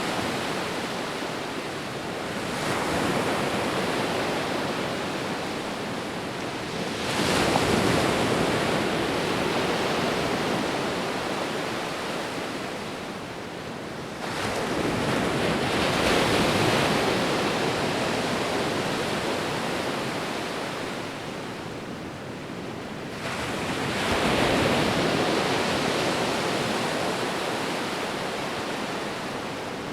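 Ocean waves breaking on a shore: a steady rush of surf in which four waves come in, each rising suddenly and then washing away slowly over several seconds.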